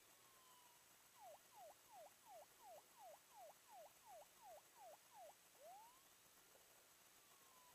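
Near silence broken by a faint run of about eleven quick whistled notes, each falling in pitch, about three a second, followed by a single rising note.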